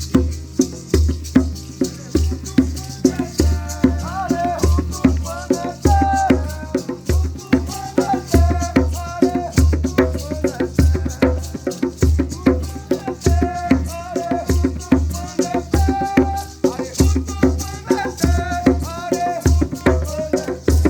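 Music: a singing voice over shaken rattles and a steady, heartbeat-like low pulse. The voice comes in about two and a half seconds in.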